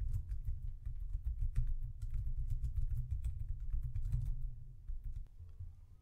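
Typing on a computer keyboard: a quick run of keystrokes that thins out and stops about five seconds in, with a low rumble underneath.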